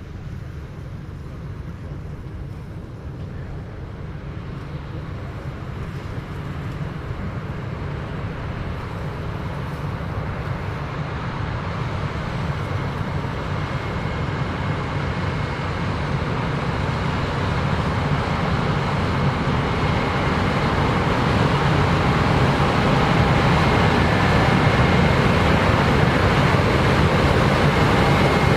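Combine harvester harvesting corn, its engine and machinery running steadily and growing louder throughout as it comes closer, with a faint whine joining in the second half.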